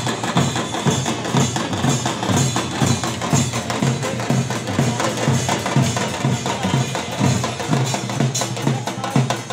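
Several hand-beaten folk drums, wooden barrel drums and steel-shelled drums, played together in a fast, steady rhythm of about three deep beats a second, with sharp clacks over it.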